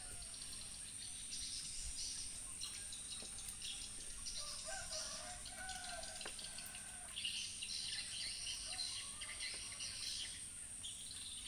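A cat chewing chicken bones, with a few faint crunching clicks. Behind it is outdoor ambience: a steady high insect drone and birds calling and chirping, strongest about halfway through.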